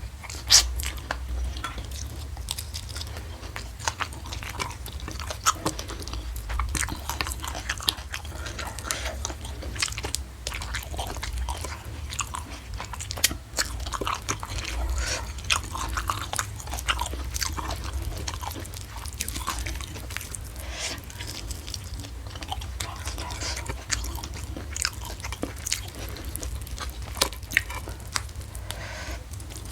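Close-miked chewing and biting of crunchy food. Irregular crisp crunches and mouth clicks run throughout, over a steady low hum.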